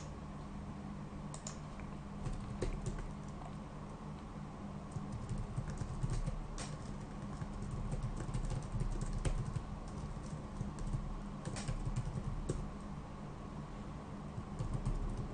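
Typing on a computer keyboard: irregular runs of key clicks with short pauses, over a faint steady low hum.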